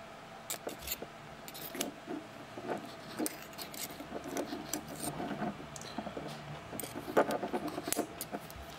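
A thin metal tool scraping and clicking against the inside of a brass petrol lighter's fuel chamber while the old cotton wool packing is worked out, in irregular short scrapes and taps with a sharper click about seven seconds in.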